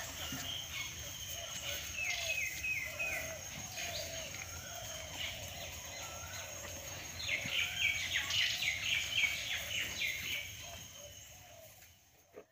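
Wild birds chirping and calling in short repeated phrases, with a quick flurry of notes past the middle, over a steady high-pitched whine. The sound fades out near the end.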